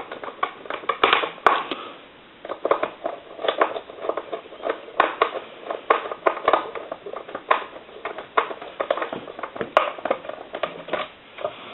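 Screwdriver driving the mounting screws back into a Conair desk telephone's housing: a long run of small, irregular clicks and scrapes.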